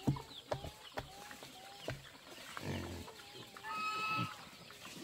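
Chickens clucking in the farmyard: short calls about two a second at first, then a longer held call about four seconds in.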